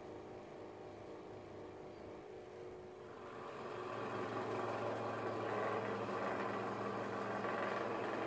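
Electric benchtop scroll saw running, with its reciprocating blade cutting through a wooden plank from about three seconds in. The sound grows louder and rougher once the cut starts, over a steady motor hum.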